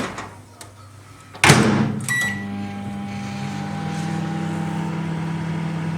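A thud, then a short electronic beep, then a microwave oven starts running with a steady hum, heating a bag of microwave popcorn.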